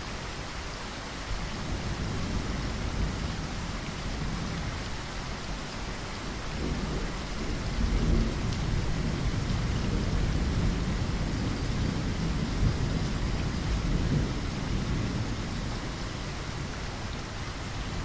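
Steady heavy rain falling, with a low roll of thunder that swells about a third of the way in and rumbles on for several seconds before easing.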